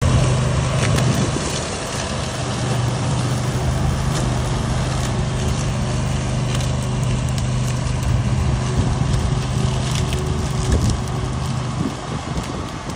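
Briggs & Stratton engine of a remote-controlled flail mower running at a steady speed, with scattered cracks and ticks over the engine note.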